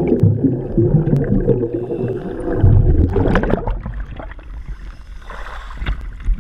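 Scuba exhaust bubbles gurgling around the camera underwater during the ascent, then a loud splash as it breaks the surface about three seconds in, followed by choppy water sloshing at the waterline.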